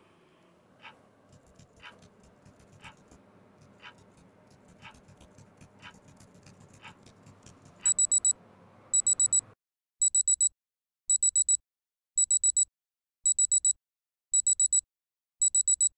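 A clock ticking faintly once a second, then an alarm clock going off: loud high-pitched beeps in quick groups of four, repeating about once a second. A low background hum under the ticking cuts off suddenly just after the beeping starts.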